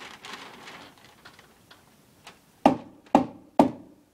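Three sharp knocks, evenly spaced about half a second apart, in the second half, after faint rustling.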